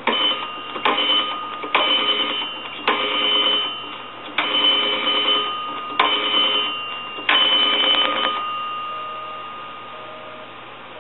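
The red rotary dial of an A&E three-slot payphone being dialed: seven digits, each a burst of clicking as the dial runs back. Near the end a busy signal starts, low beeps about once a second, because the line being called is busy.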